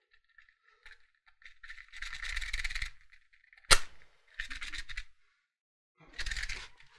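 Wooden safety match struck against a matchbox: a scraping rasp about two seconds in, then a sharp crack as the match catches near four seconds, followed by softer brief noises.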